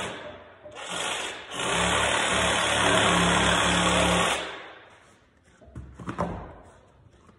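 Reciprocating saw cutting into a wooden stair tread: a short burst, a brief pause, then about three seconds of steady cutting that stops a little over four seconds in. A few light knocks follow near the end.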